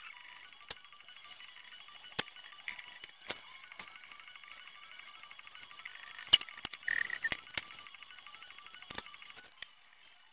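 Sped-up sound of pencil drawing on paper: a high, scratchy chatter with sharp clicks and ticks scattered through it, the loudest a little past the middle.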